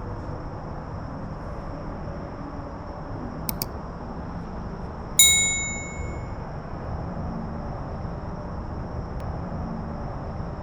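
Two quick clicks, then a single bright metallic ding that rings and fades over about a second, over a steady low background rumble.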